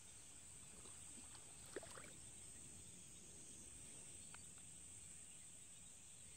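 Near silence: a faint, steady, high-pitched insect trill, with a few faint short chirps about two seconds in and again past four seconds.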